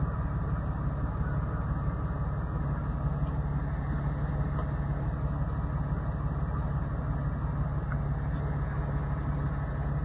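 Jeep engine running steadily at low revs, a constant low hum with no revving.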